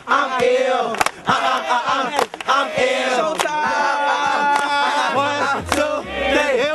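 Hip-hop backing track with voices chanting over it and a hard beat hit about once a second. A held tone sounds in the middle, and a deep bass note comes in near the end.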